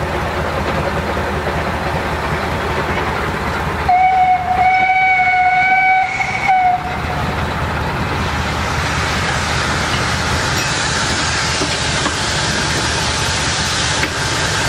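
Narrow-gauge steam locomotive sounding its whistle, one steady note held for nearly three seconds with two short breaks, about four seconds in. Steady hiss and rumble of the engine around it as the locomotive moves off.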